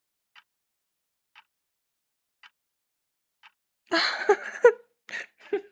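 A clock ticking about once a second, four faint ticks, then a woman's voice breaking in loudly about four seconds in.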